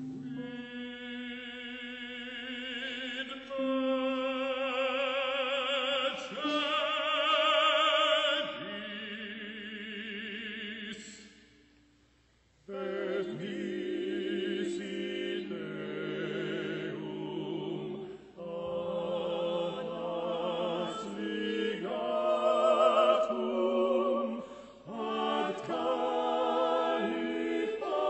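Choir singing a Latin Passion setting, sustained notes with wide vibrato. The singing breaks off for about a second just before the middle, then resumes with several voices moving together.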